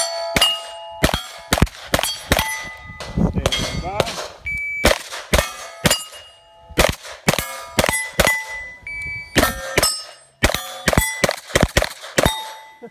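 Pistol-caliber carbine shots fired in rapid strings at steel targets, each hit answered by the plate ringing. The shots come about two to three a second, with brief pauses between strings.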